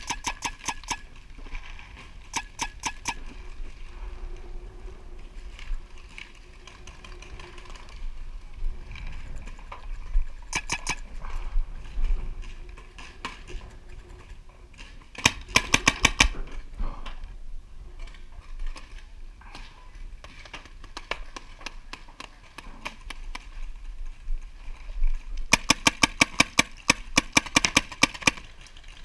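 Paintball markers firing in rapid volleys of several shots a second: short bursts through the first half, and a loud, sustained string of about three seconds near the end.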